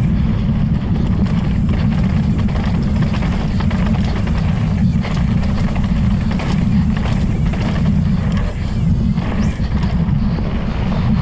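Wind buffeting a helmet or bike-mounted camera's microphone while a mountain bike is ridden fast down a dirt trail. The knobby tyres rumble over the ground, and scattered clicks and rattles come from the bike jolting over bumps.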